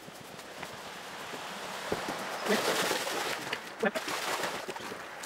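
Collies splashing as they wade into a shallow stream, the water noise building from about halfway through, with a few short knocks.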